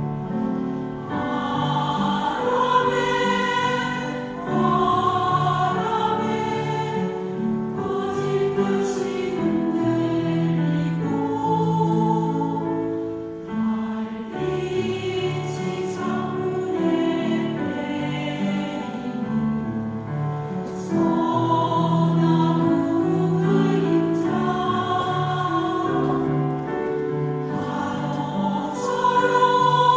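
Choir singing a Buddhist choral hymn, a slow melody of held notes over sustained low notes.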